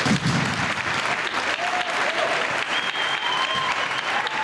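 Audience applauding, with a few short cheering calls over the clapping from about a second and a half in.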